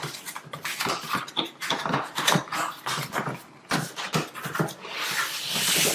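A cardboard box and its packaging being opened and handled: irregular rustles, clicks and knocks, with a longer scraping slide near the end as the contents are drawn out.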